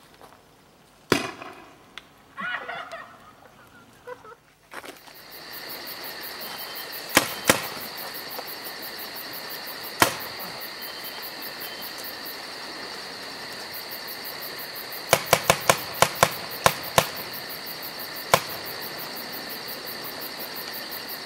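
Toy guns being fired with sharp pops: a few single shots, then a fast string of about eight, then one more. Steady insect chirring runs underneath.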